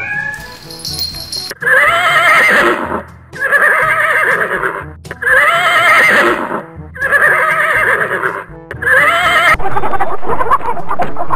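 Horse neighing five times in a row, each whinny about a second and a half long with a quavering pitch, evenly spaced. Near the end a rapid clattering sound takes over.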